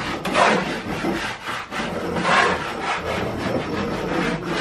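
Repeated rough scraping strokes, irregular and about one a second.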